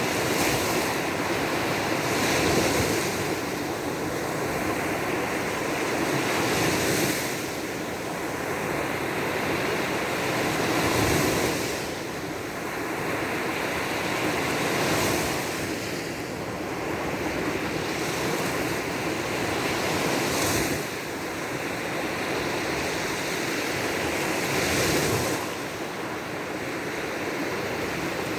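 Baltic Sea surf washing onto the shore, the sound of the waves swelling and easing every four to five seconds.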